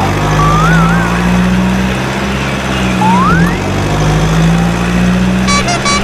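A steady, low truck engine sound, with a short wavering whistle about half a second in, a rising whistle about three seconds in, and a few quick beeps near the end.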